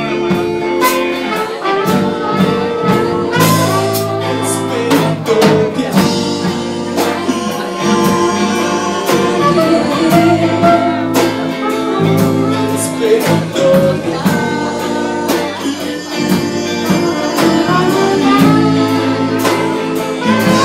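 Live band playing a song: electric guitar, bass and drums with a trumpet playing melody lines, and a male voice singing.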